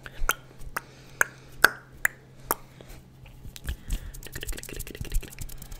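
Close-miked ASMR mouth and hand sounds: sharp wet clicks and pops about twice a second, turning about halfway through into a quicker run of softer clicks and crackles. A faint low hum sits under them.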